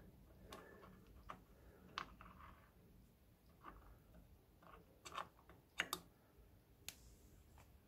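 Faint, irregular small clicks and taps, about ten in all, as fingers handle the clutch push rod end cap and the metal parts around it at the centre of a motorcycle clutch; the sharpest come a little after five and six seconds in.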